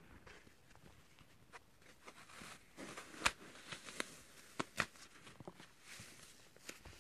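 Unsoaked floral foam crushed and crumbled in the hand: soft crunching and crackling, with sharp snaps a little past three seconds and near five seconds.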